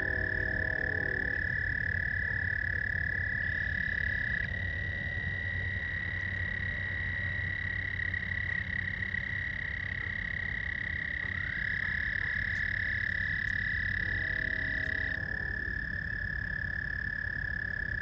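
A chorus of frogs giving long, steady trills that overlap one another. Each trill starts with a short rise in pitch and is held for several seconds to over ten seconds. A lower, pulsing frog call comes in briefly at the start and again near the end, over a steady low rumble.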